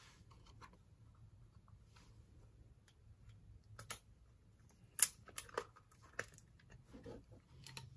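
Scattered light clicks and taps of small objects being handled, starting about four seconds in, the sharpest about five seconds in, over a faint low hum.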